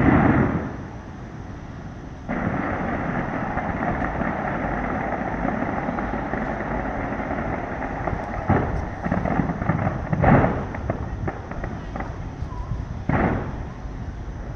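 Fireworks going off: a loud boom at the start, then from about two seconds in a dense, continuous crackling din, broken by three more sharp booms.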